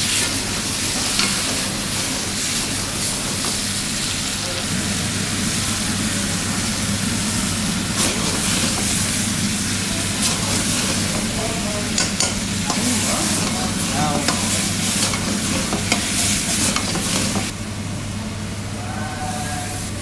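Vegetables and meat sizzling in a hot wok over an open flame, with a metal ladle stirring and clinking against the wok, over a steady low hum. Near the end the sizzle drops away as water goes into the wok.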